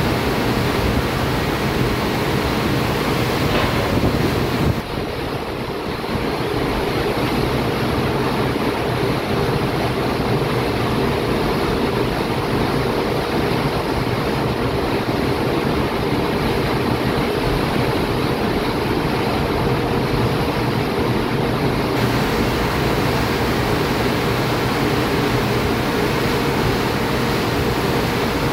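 A ship's wake churning and rushing behind the stern, over a steady low engine hum, with wind on the microphone.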